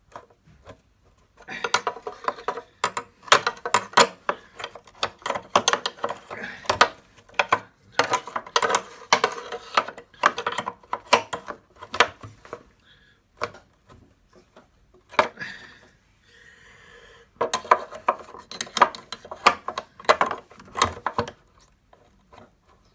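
Wrench working a bolt tight: quick metal clicks and clinks in a long run, then a pause, then a second shorter run near the end.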